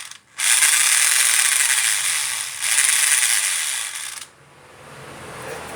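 Electric rotary hammer running with a harsh internal rattling, ratchet-like racket: the strange noise that is its fault. It restarts just after a short break, runs about four seconds and then stops, leaving a faint low hum.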